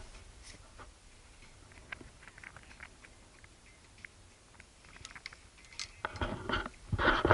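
Handling noise on the camera: scattered light clicks and rustles while it is moved. Near the end come a few sharper knocks and a louder rustle.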